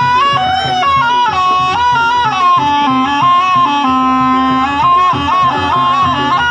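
Live jaranan music: a slompret, the shrill double-reed shawm of East Javanese jaranan, plays a stepping, ornamented melody over a steady beat of drums and gamelan.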